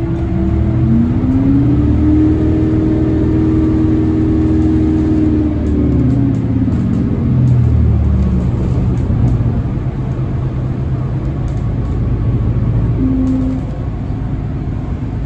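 New Flyer XDE60 hybrid articulated bus heard from inside the cabin while driving: its Cummins ISL9 diesel and Allison hybrid drive give a steady low rumble, with a drivetrain whine that rises in pitch over the first two seconds, holds, then drops away about six seconds in.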